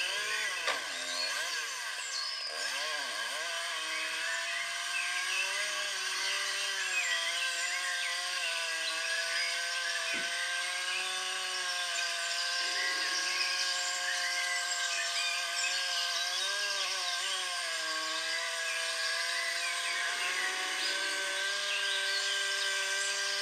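Small motor running steadily with a buzzing whine whose pitch wavers up and down, driving a chainsaw-shaped automaton.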